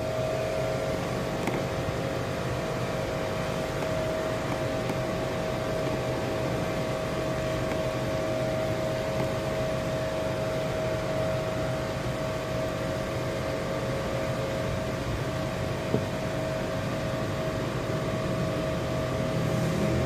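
A steady mechanical hum with one constant mid-pitched tone running through it, and a single faint click about sixteen seconds in.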